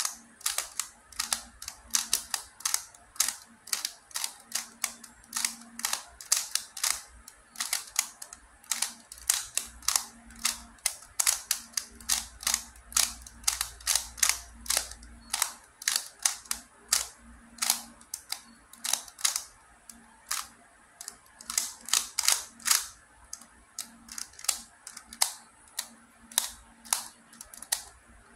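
Plastic layers of a QiYi & MoFangGe Master Pyraminx, a pyramid-shaped twisty puzzle, clicking and clacking as they are turned by hand: an uneven run of sharp clicks, a few a second.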